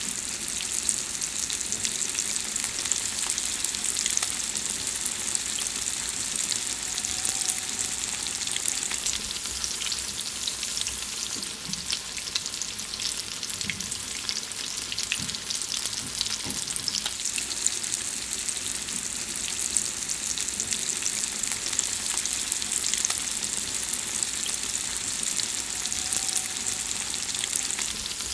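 Food frying in hot fat: a steady sizzle with a dense, continuous crackle of small pops and spits.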